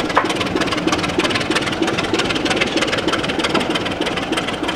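Class 26 diesel locomotive's engine running under power with a steady, fast, even beat as the train pulls out of the station.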